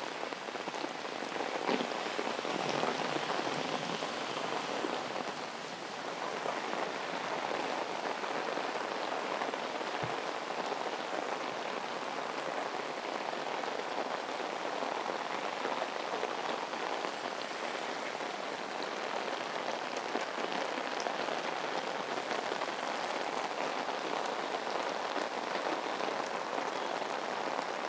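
Heavy tropical rain falling steadily on pavement and road, an even, unbroken hiss.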